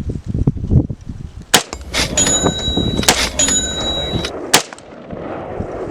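Rifle shots fired one at a time, about a second and a half apart, with steel target plates ringing on the hits a moment after the shots.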